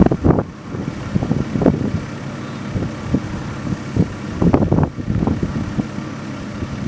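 Strong gusty wind buffeting the microphone in irregular rumbling gusts, as snow blows across a road in a winter storm.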